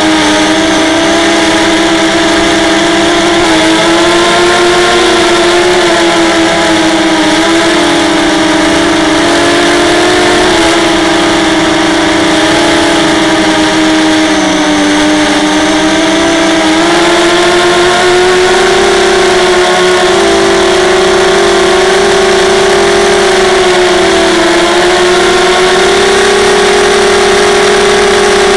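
ZMR250 racing quadcopter's brushless motors and propellers whining steadily, heard up close from its onboard camera. The pitch wanders up and down with the throttle and settles a little higher past the halfway point.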